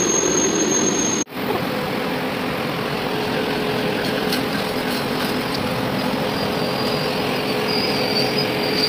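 Electric locomotive running slowly along the track, with a steady machinery hum over rolling noise. The sound cuts out briefly about a second in and resumes.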